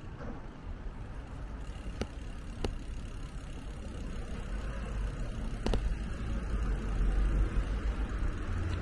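Road traffic on a city street with a low rumble that grows louder toward the end, and three sharp ticks: two about two seconds in and one near the six-second mark.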